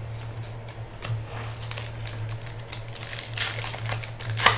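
Scissors snipping open a foil trading-card pack, with a rapid run of small clicks and crinkles from the wrapper and a sharp snip near the end.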